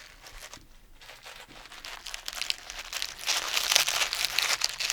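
Cabbage being twisted and crushed by hand as foley for a rat's bones crunching: a dense crackling crunch, faint at first, swelling to loud from about two seconds in.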